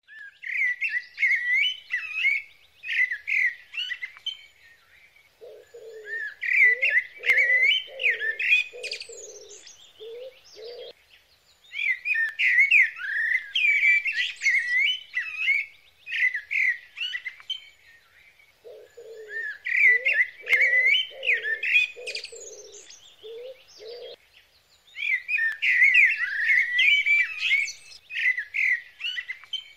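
Songbirds chirping and twittering in bursts of a few seconds with short pauses between. Twice, a second bird joins in with a run of about eight lower, evenly spaced notes.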